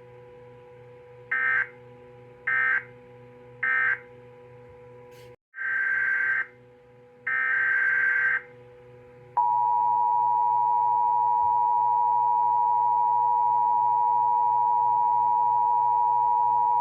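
Emergency Alert System tones on NOAA Weather Radio. First come three short, screechy digital data bursts: the end-of-message code closing the previous alert. After a brief dropout come two longer data bursts, the header of the next alert. Then, about nine seconds in, the loud, steady attention tone starts and holds.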